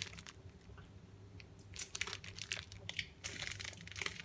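Clear plastic food wrapper crinkling as it is handled, in two short bursts of crackling about two and three and a half seconds in.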